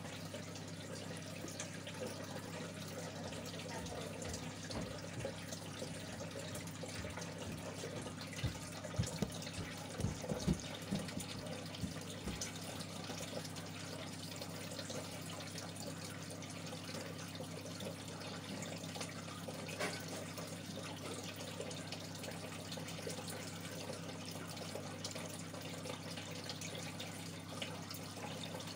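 Aquarium filter returning water into the tank: a steady trickling and splashing over a constant low pump hum, with a few low thumps about a third of the way in.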